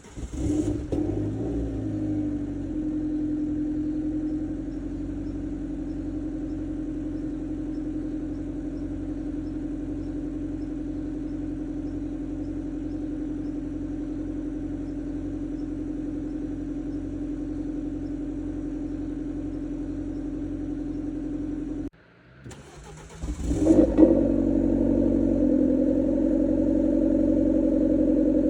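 Alfa Romeo Giulietta 1.4 TB's turbocharged four-cylinder petrol engine cold-starting: the starter cranks, the engine catches with a brief rev flare and settles into a steady fast idle, quiet with the exhaust cut-out valve closed. About 22 seconds in it shuts off, is started again with a sharper rev flare, and idles noticeably louder with the cut-out valve open.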